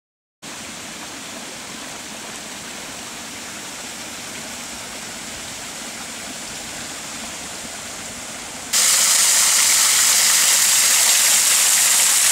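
A soft steady outdoor hiss, then, about two-thirds of the way through, a sudden change to a small waterfall close by. The water falls over rocks with a loud steady rush and splash.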